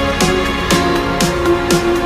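Electronic background music with a steady beat of about two strokes a second and a falling bass note on each beat.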